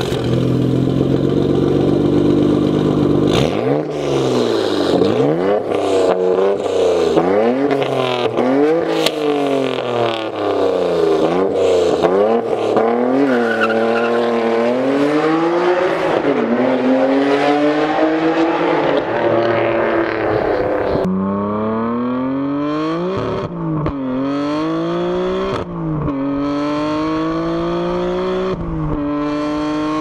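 Nissan Skyline GT-R R34's RB26DETT twin-turbo inline-six. It first holds a steady note, then revs up and down over and over for about fifteen seconds. After about twenty seconds it accelerates hard, the pitch climbing and dropping sharply at each of three upshifts.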